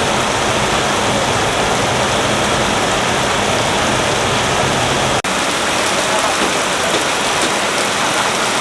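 Heavy rain pouring down, a loud, steady, dense hiss. About five seconds in it breaks off for an instant and resumes.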